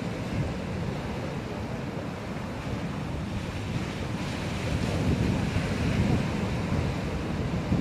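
Steady rushing noise, heaviest in the low end, swelling slightly about five seconds in.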